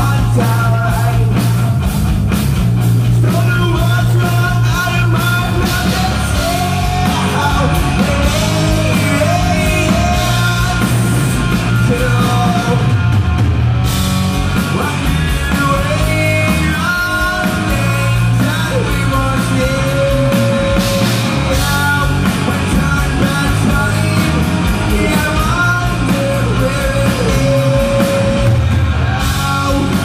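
Rock band playing live: electric guitars, drums and a male lead vocalist singing at the mic, loud and continuous.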